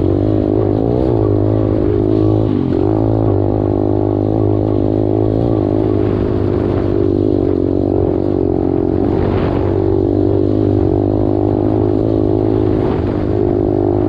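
125cc dirt bike engine running under way, its pitch rising and falling as the throttle is opened and eased off.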